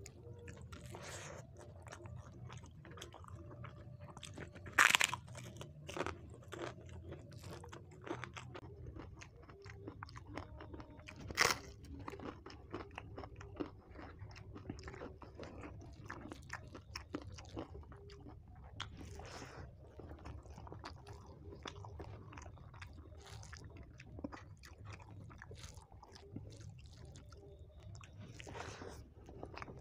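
Close-up chewing and mouth sounds of a person eating rice and curry by hand, with many small wet clicks. Two loud, sharp crunches come about five and eleven seconds in, from bites of crisp fried papad.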